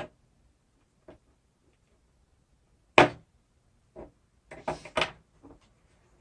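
Sharp clicks and knocks of small hard parts from a window regulator motor's gearbox being handled and set down during disassembly. The loudest knock comes about three seconds in, followed by a quick cluster of clicks.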